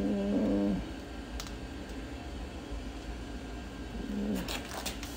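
A man's short low grunts or hums of effort, one in the first second and another briefly about four seconds in, with a few light clicks from handling the string and tape measure.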